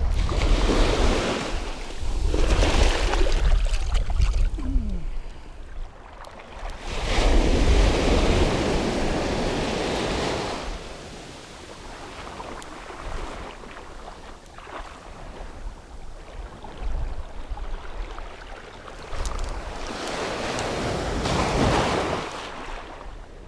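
Sea waves breaking and washing in around the microphone in the shallows, rising to loud surges about every ten seconds with quieter wash between, with wind buffeting the microphone.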